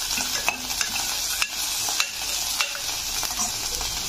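Onions and cashew nuts sizzling steadily in hot oil in a pressure cooker while a metal spoon stirs them, clicking and scraping against the pot about five times in the first three seconds.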